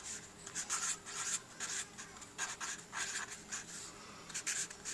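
Felt-tip marker writing on graph paper: a string of short scratchy strokes as words are written out, with brief pauses between letters.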